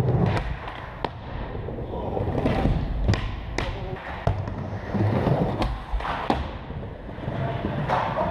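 Skateboard wheels rolling over a smooth skatepark floor, with repeated sharp clacks and knocks of boards being popped and landing.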